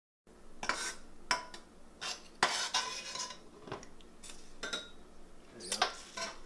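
A fork scraping and clinking against a dish in a series of short, irregular strokes, as when eating pasta from a plate or bowl.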